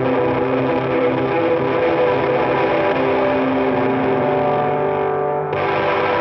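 Music: guitar with effects playing sustained, held chords. The sound turns suddenly brighter about five and a half seconds in.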